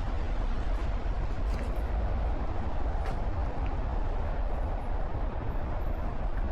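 Steady low rumble of distant city traffic, with a few faint ticks here and there.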